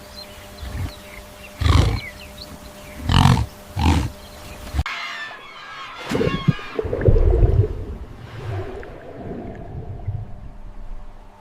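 Animal calls from two different animals. Four loud, short calls come in the first four seconds. About five seconds in, the background changes abruptly and a longer series of calls from another animal follows.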